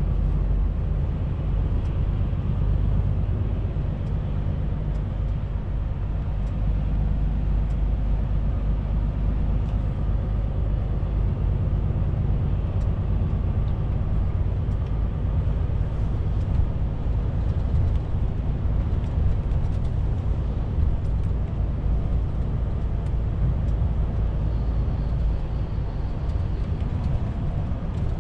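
Truck's diesel engine running steadily while driving, with tyre and road noise, a continuous low rumble.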